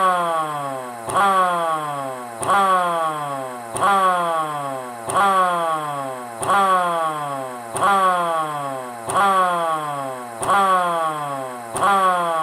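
LK JDW105 air raid siren sounding in a repeating cycle: its buzzy tone jumps up sharply, then falls in pitch over about a second, then jumps up again, roughly every 1.3 seconds.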